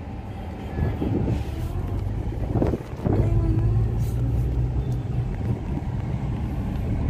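Car engine and road noise heard from inside the moving car's cabin: a steady low hum that gets a little louder about three seconds in.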